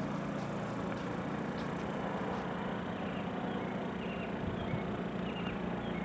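Steady low outdoor background hum, with a few faint short high chirps in the second half.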